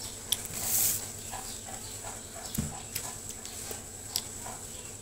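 A child crunching snack sticks taken from a plastic snack packet: scattered sharp crunches and clicks, with a brief rustle about a second in.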